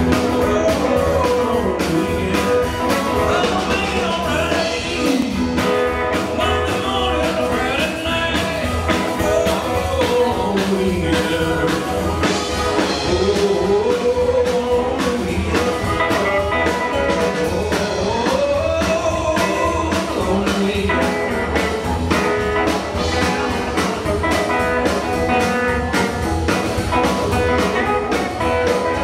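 Live band playing a blues and rock and roll number in the Sun Records style: electric guitar, electric bass and drum kit keeping a steady beat.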